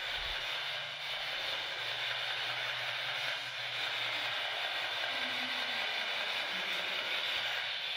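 Steady hiss with a faint low hum, unchanging throughout: room tone.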